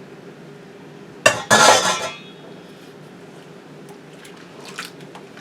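A metal utensil or container clattering against a cooking pot with a brief metallic ring, as diced jalapeños go into the salsa pot, followed by a few faint light clicks. A low steady hum runs underneath.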